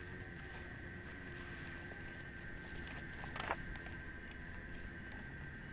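Insects chirring steadily at several high pitches, one with a fast pulsing beat, over a low rumble; a single sharp click about three and a half seconds in.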